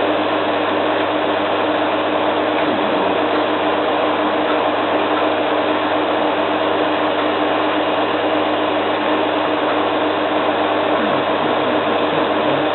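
Zanussi FLA1002W front-loading washing machine spinning at high speed with a duvet load, a constant hum and whine from the drum and motor.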